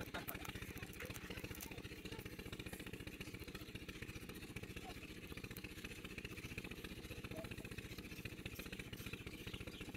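An engine idling steadily with an even, rapid pulse, with a few faint high crackles in the first second or so.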